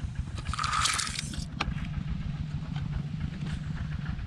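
A steady low engine drone runs on, with a brief hiss-like noise about half a second to a second and a half in.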